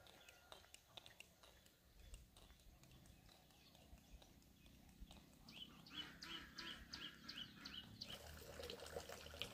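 Near silence with faint scattered clicks, then in the second half a couple of seconds of quick high chirping calls from a small animal, about four a second.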